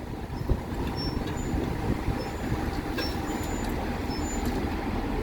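Class 165 diesel multiple unit's engine running steadily at a low rumble while the unit stands at the platform.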